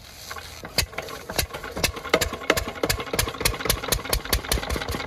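Fieldmarshal Lister-type single-cylinder diesel engine catching after a rope-pull start, cold after standing a long time. The first firing strokes come about a second in, slow and uneven, then quicken into a steady chugging of about five beats a second.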